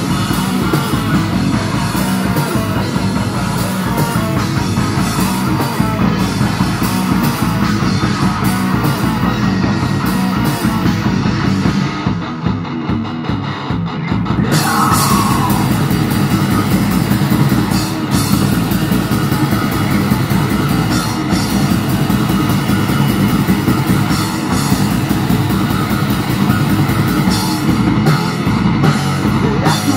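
Live metal band playing loudly: distorted electric guitars, bass and a drum kit with cymbals. About twelve seconds in, the cymbals and drums drop out for a couple of seconds and the music thins. Then a short gliding lead note sounds and the full band crashes back in.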